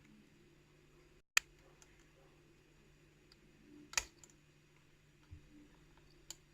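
Lock pick and tension tool working the pins of a challenge lock: faint scraping with a few sharp clicks, one just over a second in, the loudest about four seconds in, and a small one near the end.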